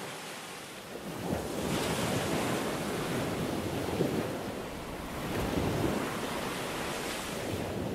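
Ocean surf: waves breaking and washing up a shore as a rushing hiss that swells with each wave, loudest about a second and a half in and again a few seconds later.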